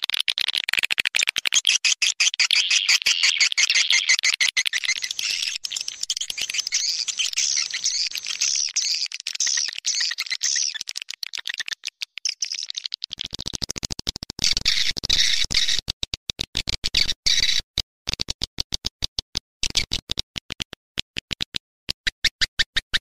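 Swiftlet lure call recording: a dense, rapid twittering of swiftlet chirps. About 13 seconds in, it turns into sharp, rapid clicking with short gaps between runs, with chirps still mixed in. It is the kind of call played in a swiftlet house to draw swiftlets in to roost and nest.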